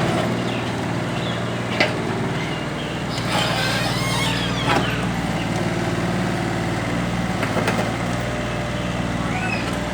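Hitachi EX30-1 mini excavator's diesel engine running steadily, with two sharp clicks about two and five seconds in.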